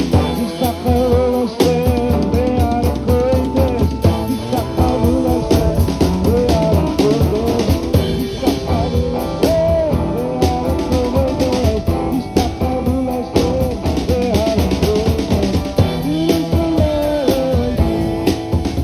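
Live Chasidic rock band playing a song, with electric guitar and drum kit.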